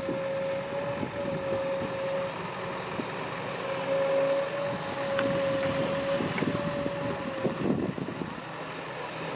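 Heavy diesel machinery running, a steady engine drone with a high, even whine that fades in and out several times.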